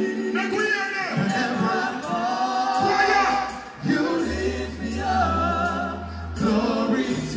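Live dancehall music through a concert PA: a male voice chanting and singing over the backing track, with a deep bass note coming in about four seconds in and dropping out about two seconds later.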